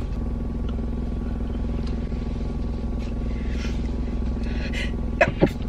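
A steady low hum and rumble, with a few faint soft rustles and two or three sharp clicks about five seconds in.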